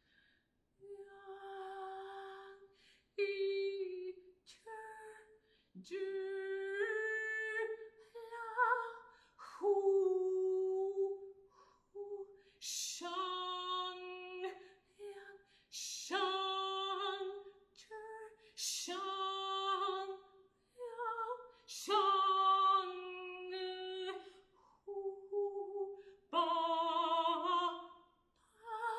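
Solo unaccompanied alto voice singing long held notes in short phrases with brief pauses between them. Several phrases begin with a sharp hissing sound, and the last held note near the end wavers with vibrato.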